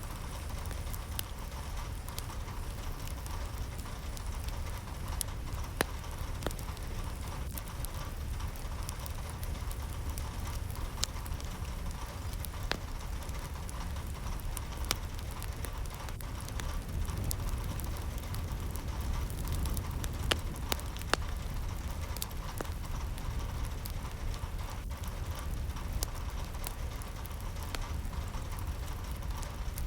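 Steady rain, with scattered sharp drops ticking over an even hiss and a low rumble underneath.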